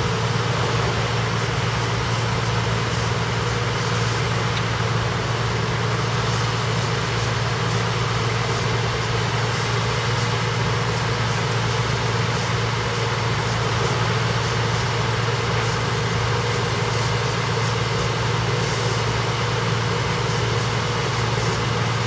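Heavy diesel engine idling steadily, a constant low drone with no change in speed.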